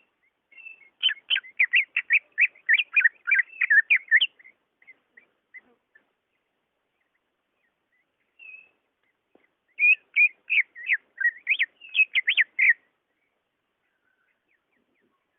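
Cucak ijo (greater green leafbird) singing: two bursts of rapid, varied whistled notes, one starting about a second in and one about ten seconds in, with a pause between them.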